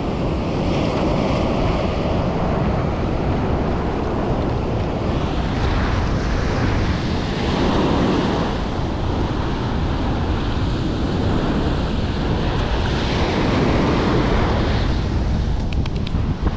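Ocean surf breaking and washing up the beach, with wind rumbling on the microphone; the wash swells twice, about halfway through and again later.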